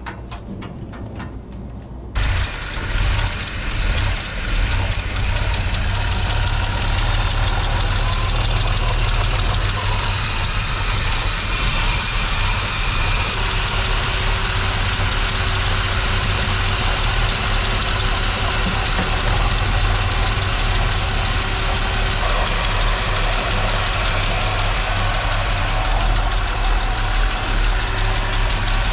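Inline-six engine of a 1976 Jeep Cherokee, fitted with a GMC throttle-body injection unit, running a little rumbly; the mechanic suspects stale, partly bad gas may be part of the cause. It comes in suddenly about two seconds in and then runs steadily.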